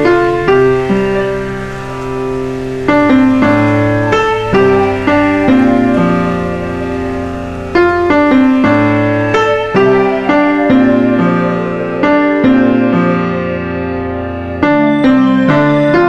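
Calm, slow piano music: notes and chords struck every second or so and left to ring out.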